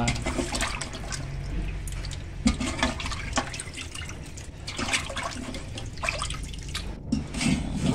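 Pork bones being washed by hand in an aluminium pot of water: the water sloshes and splashes unevenly as the hand swishes the bones around. About halfway through, a stream of water runs into the pot.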